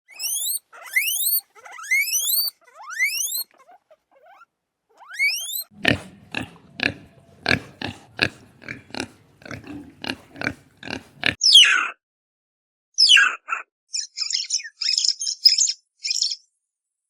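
Animal calls: first a string of short rising whistled calls, then a run of grunts at about two a second, then squeaky, chattering high-pitched calls.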